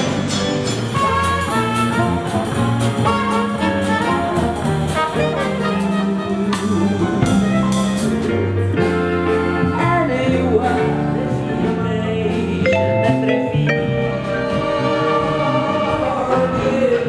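Jazzy music with brass and drums, with a singing voice, playing steadily with regular drum and cymbal hits.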